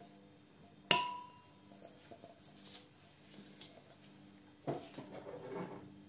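Stainless steel bowl clanking once against metal about a second in, with a short clear ring after the hit. A softer knock and rustle of handling follow near the end.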